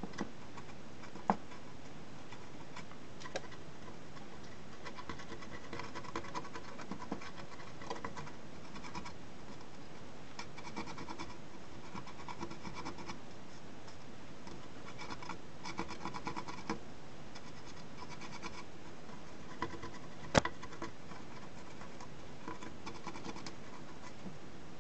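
Cotton swab scrubbing flux residue off a soldered circuit board: soft scratchy rubbing that comes and goes in spells, with a couple of sharp clicks, the louder one well past the middle.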